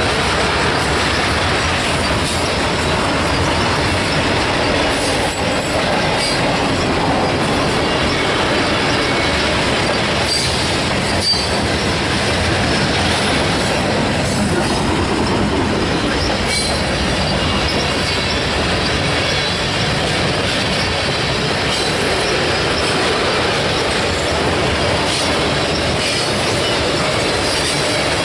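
Canadian Pacific freight train cars rolling past at close range: a loud, steady rumble of steel wheels on rail with occasional clicks over rail joints.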